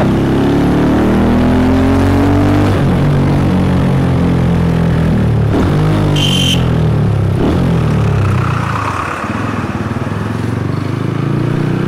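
Motorcycle engine running under way in town traffic, its pitch rising as it accelerates and dropping at each gear change, then easing off a little past the middle. A short horn beep sounds about six seconds in.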